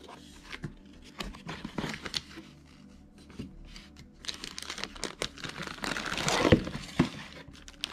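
Packaging being unpacked by hand: crinkling and rustling with small knocks and clicks, swelling to a louder rustle about six seconds in.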